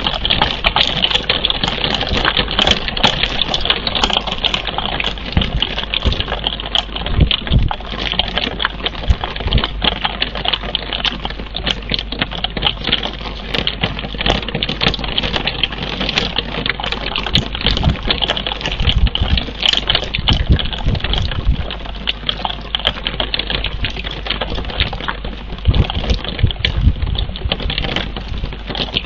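Rain pattering close on the nest camera's microphone and housing: a dense, fast run of sharp drop ticks, with a few low thumps now and then.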